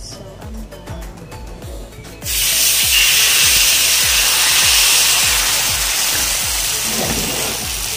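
Flour batter with dried shrimp and shallots dropped into hot oil in a wok, sizzling loudly from about two seconds in. A steady, regular bass beat plays underneath.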